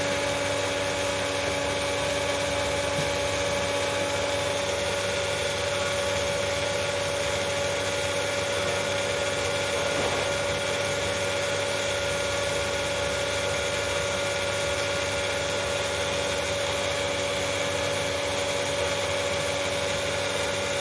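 Pool filtration pump running steadily: a constant motor hum with a high steady whine over a wash of flowing water.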